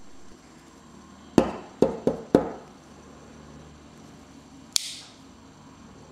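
Metal folding knife being handled: four sharp clacks in quick succession, then one sharper, higher click with a short hiss about two seconds later.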